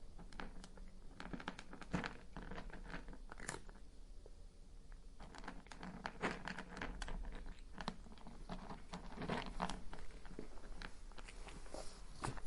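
Cat crunching and chewing dry kibble: irregular crisp crunches, with a short lull about four seconds in before the chewing picks up again.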